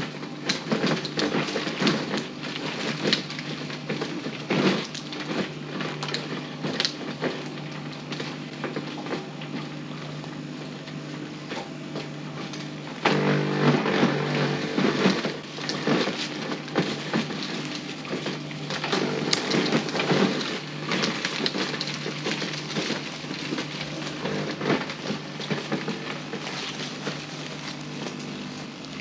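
Small Ryobi chainsaw running steadily at a fixed pitch while cutting branches, with wood and twigs crackling and snapping, and louder stretches under load.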